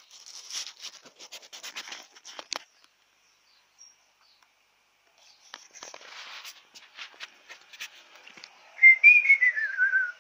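Phone microphone handling noise, scraping and rubbing as the handheld phone is moved, stopping for a couple of seconds midway. Near the end comes the loudest sound: a wavering whistle that falls in pitch, lasting about a second.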